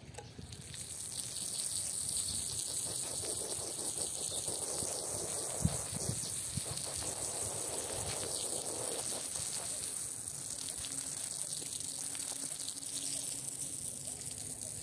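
Water from a garden hose spraying onto a soaked, soapy rug and splashing over a terrazzo floor. It starts about a second in and runs steadily, with two thumps about six seconds in.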